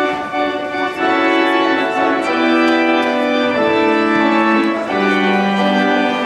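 Church organ playing held chords that change every second or so.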